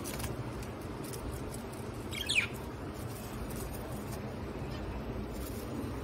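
A small finch gives one short, loud call that falls in pitch about two seconds in, while it is being caught by hand in a wire cage. A low steady hum runs underneath.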